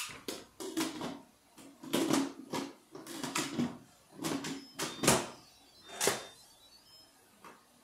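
Stainless-steel lid of an Instant Pot electric pressure cooker being set on the pot and twisted to lock, with its steam release turned to sealing: a run of clatters, scrapes and clicks, the two sharpest clicks about five and six seconds in.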